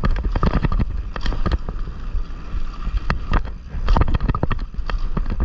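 A loose GoPro mount rattling and knocking as a mountain bike rides down a rough dirt trail, with irregular sharp clacks several times a second over a steady low rumble of tyres and wind on the microphone.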